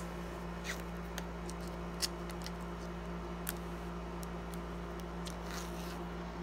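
Faint scattered clicks and a short plastic rustle a little before the end, from a shrink-wrapped Blu-ray steelbook case being handled and its wrap cut with a box cutter. A steady low hum runs under it.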